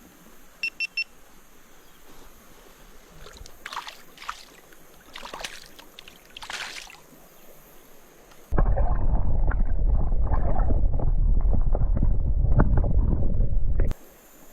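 Three short electronic beeps about a second in, then a few light splashes of water. About eight and a half seconds in, the microphone goes under the water: a loud, muffled rushing and gurgling of creek water lasts about five seconds, then cuts off suddenly.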